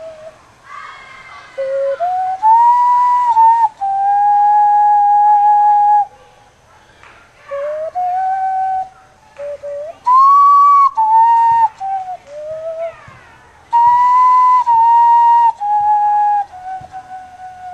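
Hand whistle: a person blowing into cupped hands, playing a slow melody of pure, flute-like held notes that step up and down in pitch. The melody comes in three phrases with short breaks between them.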